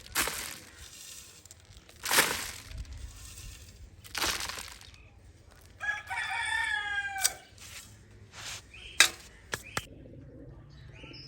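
Domestic fowl calling once, a drawn-out call of about a second and a half starting about six seconds in. Before it come several short bursts of rustling noise, and a few sharp clicks follow near the end.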